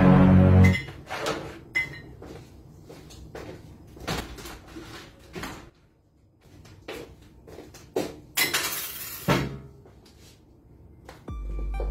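A plate set down on a table, then scattered light knocks and clatter in a small room, with a short hissing rush about eight seconds in. Music plays briefly at the start and comes back just before the end.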